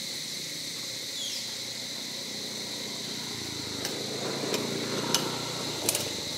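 Steady high-pitched chirring of insects such as crickets, with a short falling chirp about a second in. In the second half there is some rustling and about four sharp clicks.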